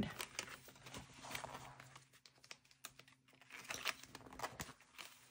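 Faint rustling and scattered light clicks of paper and plastic being handled: cash envelopes and a budget binder being moved and opened.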